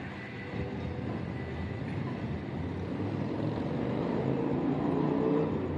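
Low, steady vehicle rumble at a railroad grade crossing, growing a little louder near the end.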